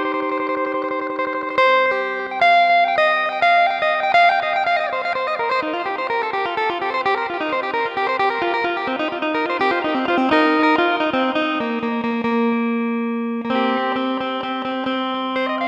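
Amplified phin, the Isan plucked lute, playing a lai melody in quick picked notes over a ringing drone note, with an electric, effects-processed tone.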